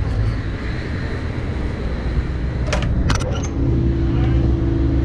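A yacht's diesel engine running with a steady low drone that grows louder about three and a half seconds in. A few sharp knocks come around the three-second mark.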